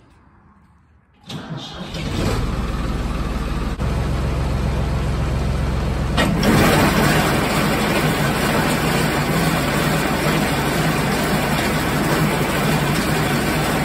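A tractor engine starts about a second in and runs, driving a freshly rebuilt New Holland 488 Haybine on its first test run with a new wobble box drive belt. About six seconds in the sound grows louder and fuller. It sounds normal, with nothing wrong to be heard.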